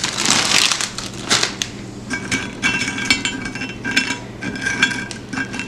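Vanilla wafer packaging crinkling, then many small hard mini vanilla wafers clicking and clattering as they are tipped into a dish.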